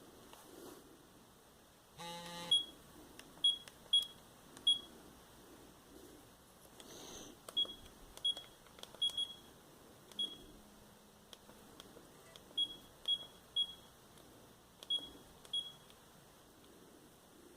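Sagem my421Z mobile phone's keypad beeps: about a dozen short, identical high-pitched beeps, singly and in quick runs of two or three, as its keys are pressed.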